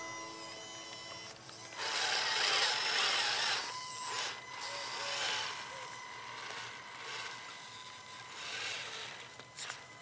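Small electric motor and geartrain of a radio-controlled scale 6x6 truck whining as it crawls over rocks, the pitch wavering up and down with the throttle, over a gritty scraping hiss.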